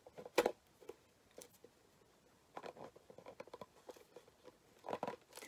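Hands opening a small package: a sharp click about half a second in, then light scattered rustling and tapping of the packaging.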